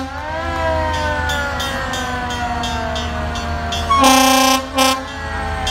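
Fire truck sirens slowly falling in pitch. About four seconds in an air horn gives a loud blast, followed by a short second blast.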